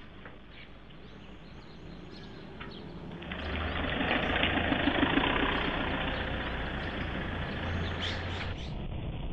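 A motor's engine running with a rushing noise, growing much louder about three seconds in and easing off slightly near the end.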